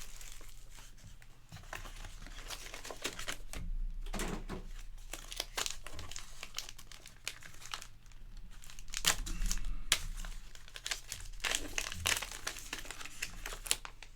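Card-pack wrapper crinkling and tearing as it is ripped open and handled, in a run of irregular rustles and crackles.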